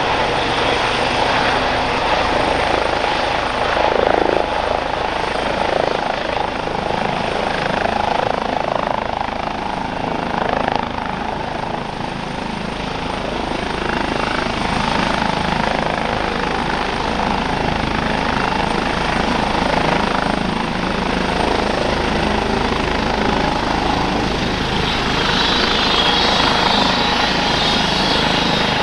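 Airbus H135 helicopter hover-taxiing at low height: steady rotor noise with a thin high turbine whine, and an extra higher whine coming in near the end.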